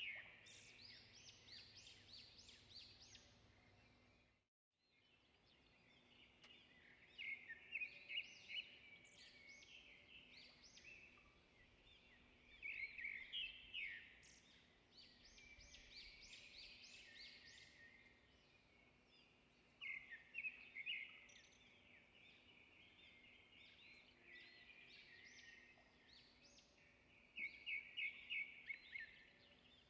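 Faint birdsong: birds chirping and singing quick runs of high repeated notes, with the sound cutting out completely for about half a second some four and a half seconds in.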